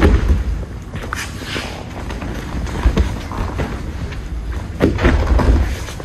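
Thuds of a body hitting and rolling on tatami mats as an aikido partner takes break-falls from throws, louder near the start, about three seconds in and about five seconds in.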